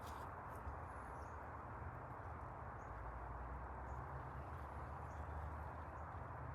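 Faint, steady background noise with a low hum, broken by a few faint, brief high chirps or ticks.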